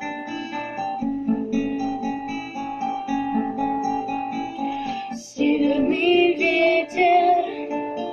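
A song's guitar introduction, with plucked acoustic guitar notes; about five seconds in, a voice starts singing over the guitar.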